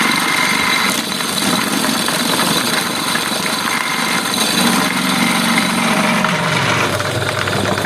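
Multi-purpose chopper machine running steadily, a continuous mechanical drone with a slight drop in its low note about six seconds in.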